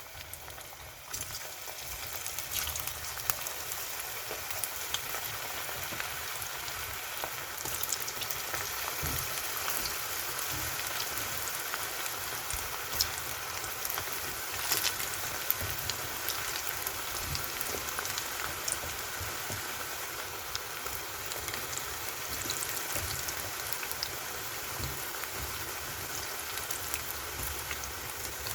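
Batter-coated cauliflower florets deep-frying in hot oil: a steady sizzle with scattered small crackles, picking up about a second in.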